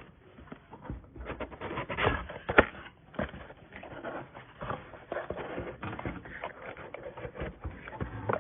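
Cardboard box and packaging being handled and opened: irregular rustling with scattered clicks and knocks, the sharpest two about two seconds in.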